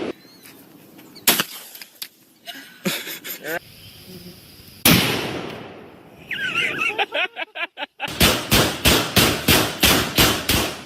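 Gunfire at a shooting range: a single sharp shot, then a heavier blast about halfway through that echoes and fades over a couple of seconds, and near the end rapid fire of about four to five shots a second.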